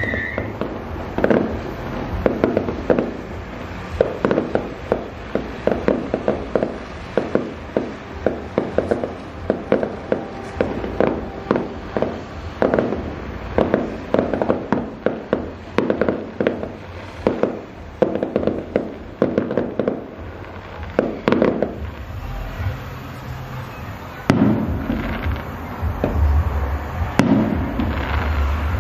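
Fireworks display: a rapid run of sharp bangs and crackling pops, several a second, that thins out to occasional bangs after about twenty seconds. A low rumble joins in for the last few seconds.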